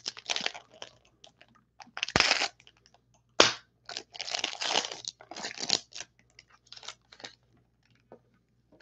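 Foil wrapper of a trading-card pack being torn open and crinkled by hand: irregular crackling and tearing, with a sharp snap about three and a half seconds in, dying away after about seven seconds.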